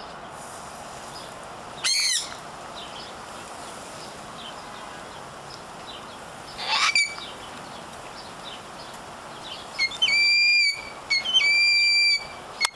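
Birds calling over a steady background hiss. There are two brief calls about two and seven seconds in, then from about ten seconds on a run of louder, longer calls, each held at one pitch with a step in it.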